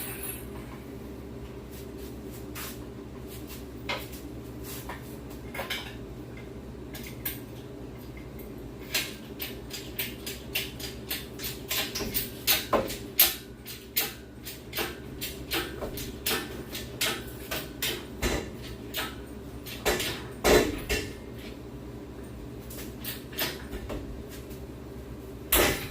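Irregular metallic clanks and clicks from a shop engine hoist and its chain taking up the weight of the engine and transmission as they are lifted out of a 1969 Ford F100. They come thickest through the middle, with a few louder knocks, over a steady low hum.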